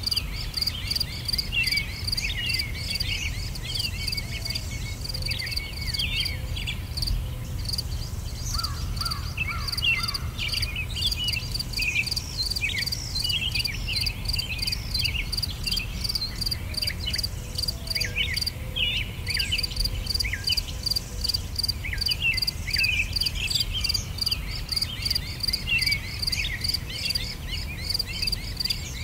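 Nature ambience of insects chirping in a fast, even pulse, with many short high bird-like calls over it and a low steady rumble beneath. The pulsing breaks off briefly about two-thirds of the way through.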